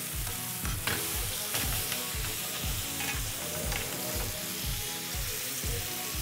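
Butter melting and sizzling in a hot frying pan: a steady crackling hiss, with a few light clicks. Background music with a steady low beat runs underneath.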